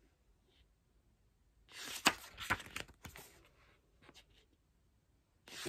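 Pages of a glossy photobook being turned by hand: a papery rustle about two seconds in with a couple of sharp clicks, a few light ticks after it, and another page flip starting at the very end.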